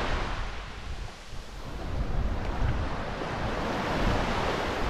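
Wind buffeting the microphone in uneven gusts over small waves washing onto a sandy shore, with a brief lull about a second in.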